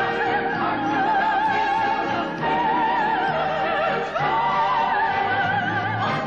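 Operatic soprano singing a run of long, high held notes with wide vibrato, moving to a new note about two and a half seconds in and again about four seconds in, over quieter accompaniment.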